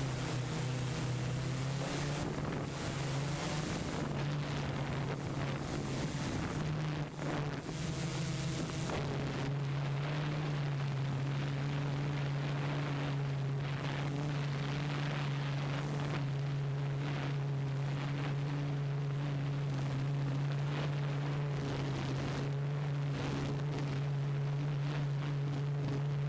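Steady low mechanical hum with a few fainter overtones, shifting slightly in pitch a couple of times, over a rushing of wind on the microphone.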